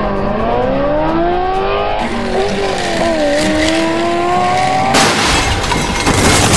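Race-car engine sound effect whining and revving, its pitch rising and falling several times. About five seconds in it gives way to a loud rushing, crackling noise.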